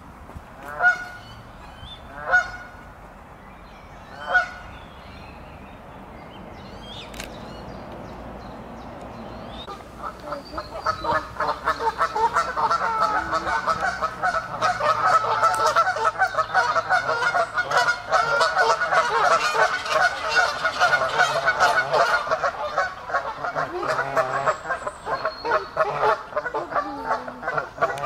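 Canada geese honking: three single honks in the first few seconds, then from about ten seconds in a loud, dense run of many honks overlapping, which stops just before the end.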